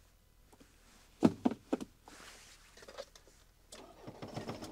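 A few sharp clicks and knocks in the cab of an Isuzu N75 truck about a second in, then near the end a building mechanical sound as the truck is switched on.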